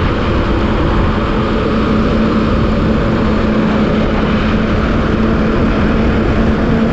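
Motorcycle cruising at a steady speed: an even engine drone under loud wind rush on the microphone.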